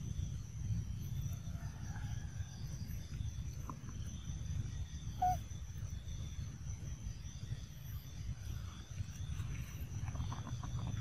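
Outdoor ambience: a steady high insect drone over a low rumble, with one short squeak about five seconds in and a few faint ticks.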